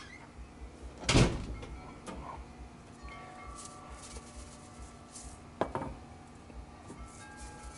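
Knocks from handling fish and a shaker at a barrel smoker's metal grate: a loud one about a second in and a smaller one more than halfway through. In between, a few clear, sustained ringing tones like chimes.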